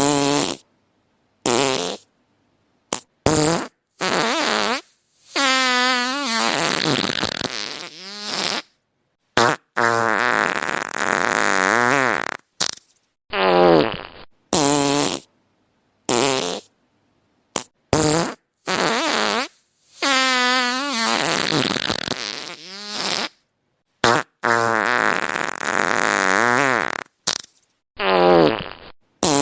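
A string of fart sound effects one after another with dead silence between them: some short blasts, some long, sputtering ones whose pitch wavers and bends for several seconds. The same run of sounds repeats about halfway through.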